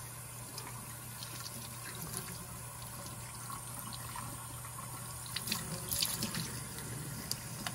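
Kitchen faucet running a steady stream into a sink as a squid is rinsed under it by hand, with a few small splashes about five to six seconds in. A steady low hum sits underneath.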